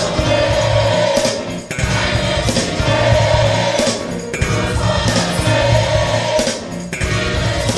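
Gospel choir singing in sustained phrases, with short breaks about every two and a half seconds.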